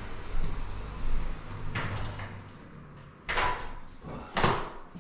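A few knocks and thuds, one about two seconds in and two louder ones near the end, about a second apart, over a low steady hum.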